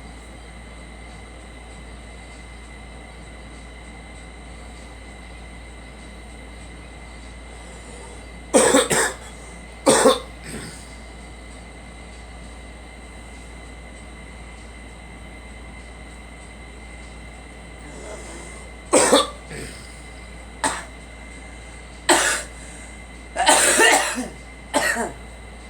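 A girl coughing from a cold. Two coughs come about eight seconds in, then a run of separate coughs from about nineteen seconds on, the longest fit near the end.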